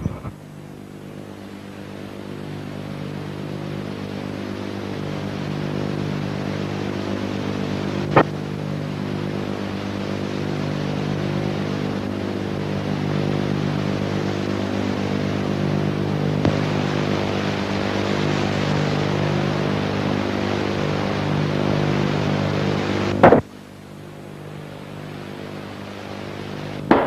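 Steady drone of jet aircraft engines, slowly growing louder, with a short click about eight seconds in and a sudden drop near the end before the drone builds again.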